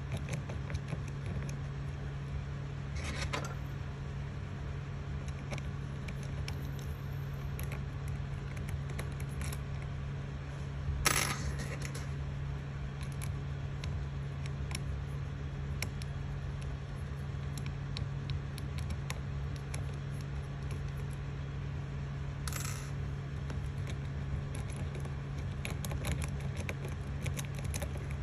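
Steady low hum of the Creality Ender 3 3D printer's fans, with small plastic and metal clicks from fingers working the extruder lever and filament. A few louder clicks stand out, the sharpest about eleven seconds in.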